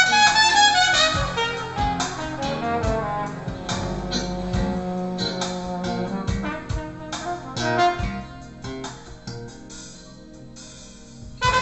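Jazz with brass horns and bass played back through home hi-fi loudspeakers and picked up by a microphone in the room. It grows quieter in the last few seconds, then the horns come back loud just at the end.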